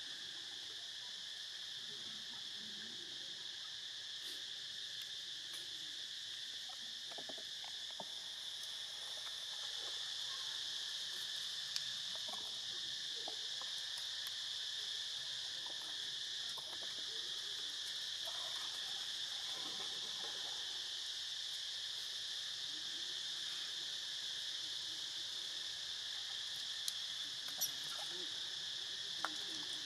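A steady, high-pitched insect chorus that carries on unbroken, with a few faint clicks in the second half.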